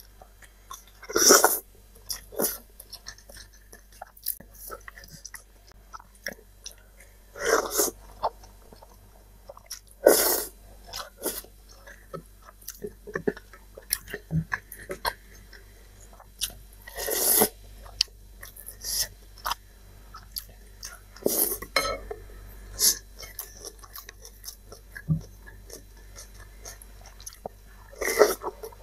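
Close-miked eating of instant cup noodles: chewing with small clicks and soft mouth noises, broken about six times by a loud, sharp burst a few seconds apart.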